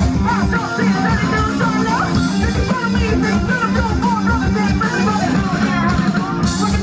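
Live funk band playing an instrumental passage: electric guitar over bass and drums with a steady beat.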